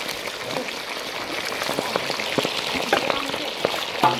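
Food frying in hot oil: a steady sizzle with scattered crackles, and a sharp knock or clatter near the end.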